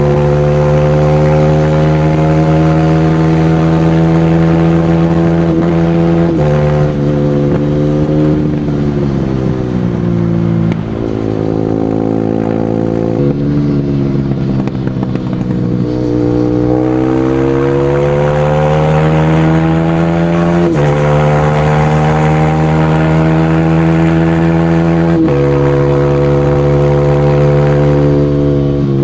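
Single-cylinder four-stroke supermoto engine ridden hard at high revs. The pitch steps through several gear changes, sags about midway, then climbs again.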